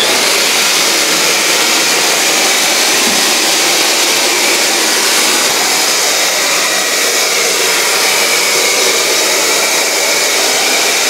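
Hand-held electric fogger's blower motor running steadily at full speed, misting disinfectant.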